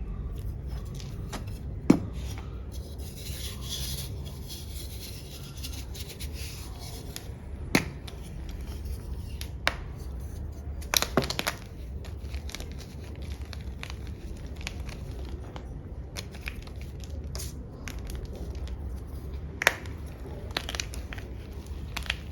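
Blocks of black-dyed gym chalk being crushed: soft crumbling and rubbing, broken by scattered sharp cracks, the loudest about 2 s in and a close pair about 11 s in. A low steady hum runs underneath.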